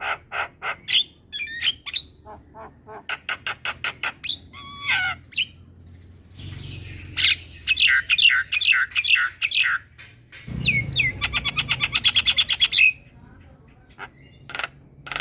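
Javan myna singing energetically: a varied mix of sharp clicks, whistled gliding notes and harsh chatter, with a fast, even run of repeated notes about two-thirds of the way through and short pauses between phrases.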